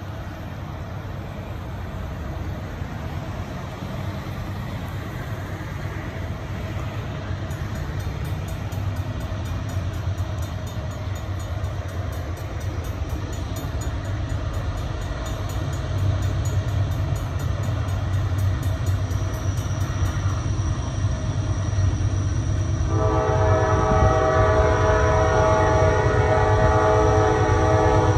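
Low rumble of an approaching diesel freight train, growing steadily louder. In the last few seconds the lead locomotive, a GE Dash 9, sounds its horn in one long steady chord as a grade-crossing warning.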